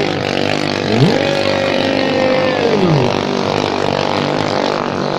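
Racing katinting longtail boats' small 13 hp engines running flat out. Several engines drone together, and one pitch climbs about a second in, holds, then drops back near three seconds in.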